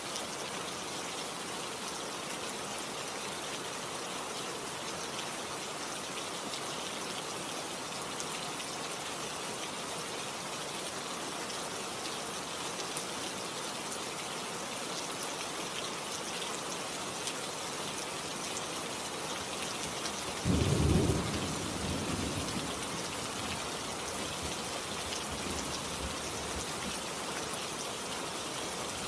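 Steady rain falling, with a sudden low thunderclap about two-thirds of the way through that rumbles off over a few seconds.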